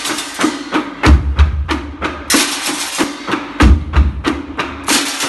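A group of large wooden-shelled drums on stands beaten with sticks in a fast tarantella rhythm, about four strokes a second. A deep boom falls roughly every two and a half seconds, with brighter, rushing passages between the booms.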